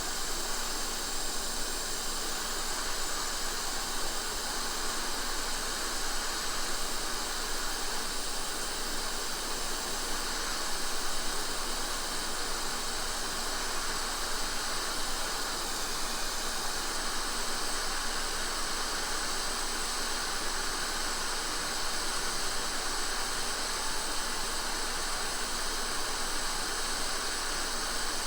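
Hot air rework station blowing a steady hiss of air while reflowing solder to reseat a small inductor on the circuit board.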